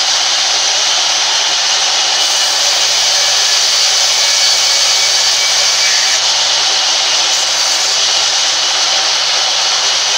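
Sawmill's vertical blade saw running steadily and cutting lengthwise through a wooden plank as it is fed past the blade.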